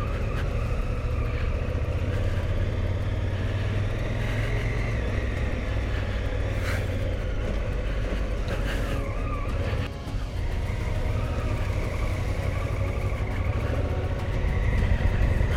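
Adventure motorcycle engine running steadily at low speed on a rough dirt track, mixed with road and wind rumble at the mounted camera. It eases briefly about ten seconds in.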